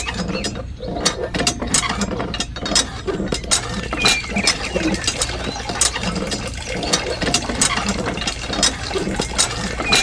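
Miniature plastic hand pump being worked, its mechanism clattering in quick, irregular clicks with brief squeaks, over a low steady hum, as it pumps water into a toy pond.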